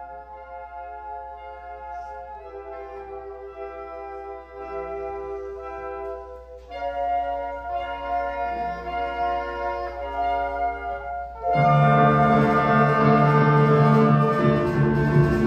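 Concert wind band playing held chords that change about every four seconds and grow louder in steps; about three quarters of the way through, the full band comes in suddenly and much louder.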